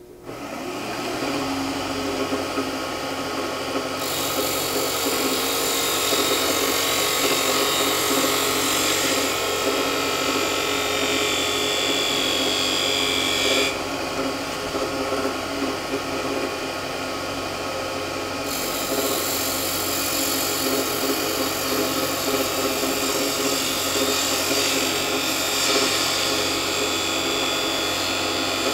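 Wood lathe running while a spindle gouge cuts a bead in the spinning wood, starting about a second in. The cutting hiss comes and goes as the tool sweeps from side to side, easing off for a few seconds midway before picking up again.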